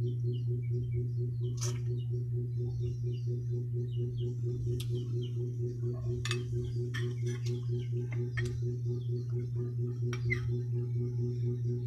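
Steady low electrical hum with a fast pulsing in its overtones, under scattered soft clicks and smacks from chewing and handling roasted chicken by hand.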